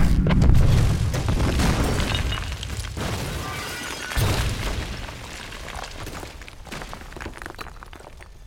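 A building blowing up in a series of explosions: a huge blast at the start with deep rumbling that fades over a couple of seconds, and a second blast about four seconds in. Debris then falls and clatters down as the sound dies away.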